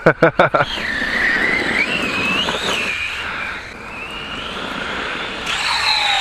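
Brushless electric motor of a VKAR Racing Bison V2 RC truggy, a 3670 motor on a 4S battery, whining as it is driven, its pitch rising and falling with the throttle over tyre and ground noise. A few sharp knocks come in the first second.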